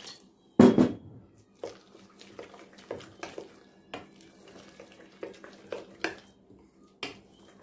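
Water poured from a glass jug into a glass bowl of ground spices, with a loud knock about half a second in. Then a metal spoon stirs the thick, wet spice paste, scraping and clicking against the glass bowl about twice a second.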